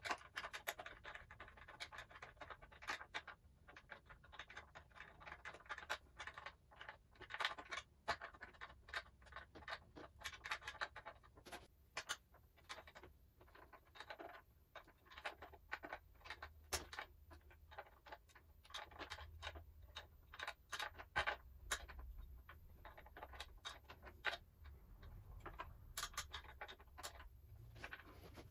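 Faint, irregular clicking and scraping of a hand tool turning a bolt in by hand, metal on metal.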